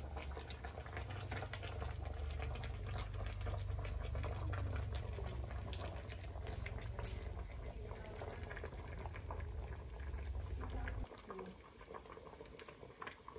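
A pot of sweet corn boiling over an open wood fire, bubbling steadily with many small crackles and pops. A low rumble underneath cuts off suddenly about eleven seconds in.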